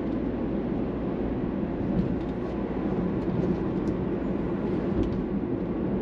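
Steady car engine and road noise heard from inside the cabin of a car cruising along a paved road.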